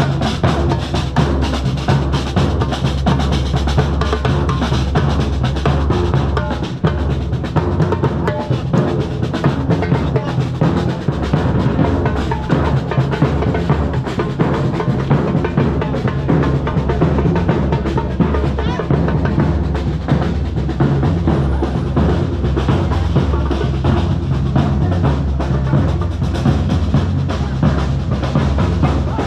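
Street drum group beating large marching bass drums with mallets, playing a loud, continuous, dense beat.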